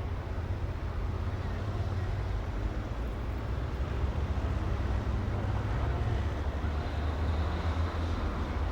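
City street traffic: a steady low rumble of engines and tyres with no single vehicle standing out.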